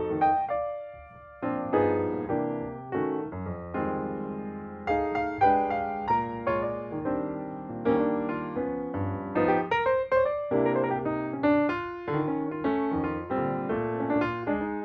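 Background piano music: a gentle melody and chords played on piano or electric piano, with notes struck and left to ring.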